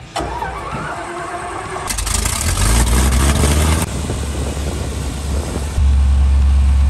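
Light propeller aircraft's engine and propeller: it starts with rising pitch, runs up louder, and about six seconds in jumps to a loud, steady low drone at full power for the takeoff run.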